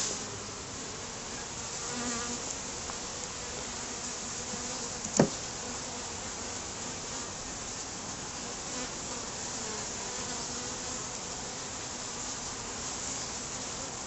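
A colony of honeybees buzzing steadily as a hum around an open top-bar hive, with one sharp knock about five seconds in.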